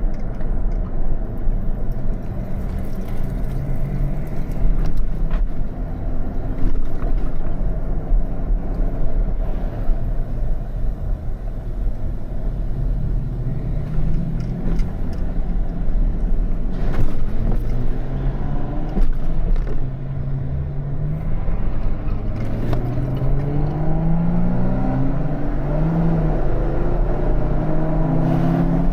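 Jeep engine running under a steady deep rumble. In the last several seconds it accelerates, its pitch rising, dipping back as it shifts, and rising again.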